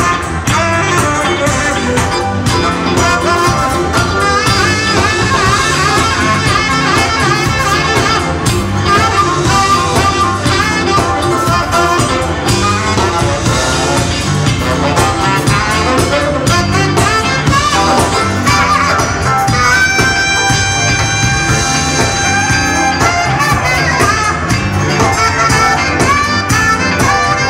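Live funk band playing, with a saxophone solo over drum kit and congas; the saxophone holds one long note about three-quarters of the way through.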